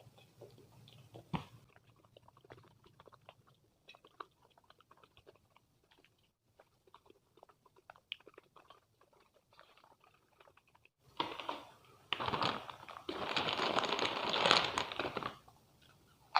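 Close-miked eating: faint chewing with small wet clicks, then about eleven seconds in a loud stretch of crunching lasting some four seconds.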